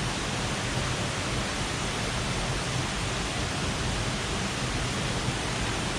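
Steady rushing of falling water from a waterfall, an even unbroken noise.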